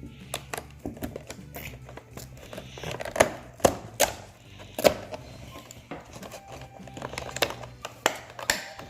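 Crinkling and tearing of a small toy surprise packet's wrapper being opened by hand: a run of sharp crackles and clicks, loudest in a cluster about three to five seconds in.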